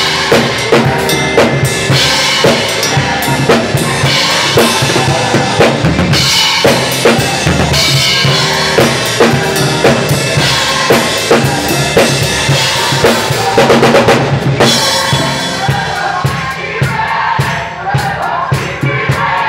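Drum kit played in a gospel praise band: kick drum, snare and cymbals in a steady driving groove, with the band's keyboard underneath. About 15 seconds in, the cymbals drop away and the playing thins out.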